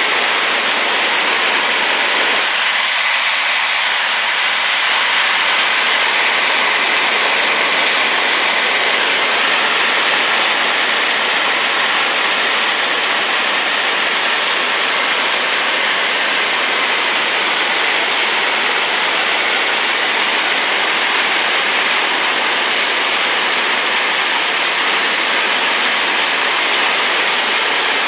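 Waterfall swollen by rain: a loud, steady rush of falling water.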